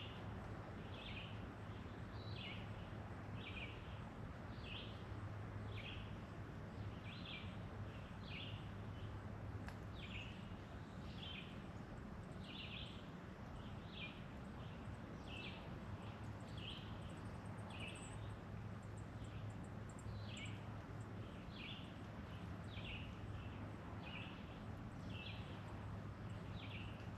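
Outdoor ambience with a bird repeating one short, high chirp about once a second, over a steady background hiss and low hum.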